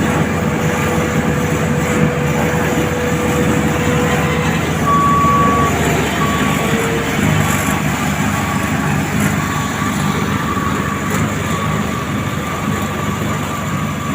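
Heavy road-paving machinery engines running steadily, with a thin high tone that comes and goes from about five seconds in.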